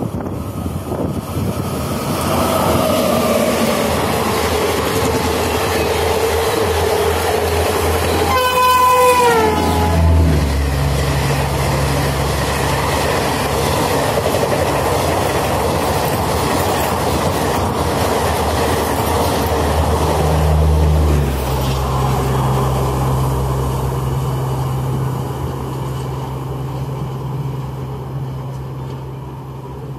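Yuva Express, an electric-hauled train of ICF coaches, running through the station at speed. The horn sounds as the locomotive approaches, and about eight to nine seconds in the blast drops in pitch as it passes. Then comes the long rumble and wheel clatter of the coaches going by, fading as the train draws away near the end.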